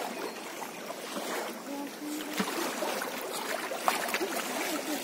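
Steady rush of a swollen monsoon river, with small drips and rustles from a wet mosquito net being handled and lifted as it is searched for small fish.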